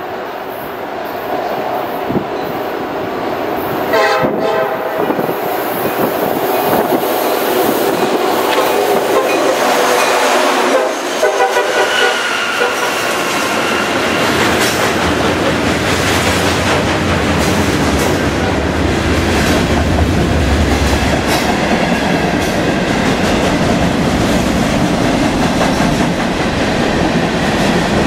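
Diesel freight train approaching: its locomotive air horn sounds briefly about four seconds in and again around ten to twelve seconds. The freight cars then roll past close by, with steady wheel clatter and rumble on the rails.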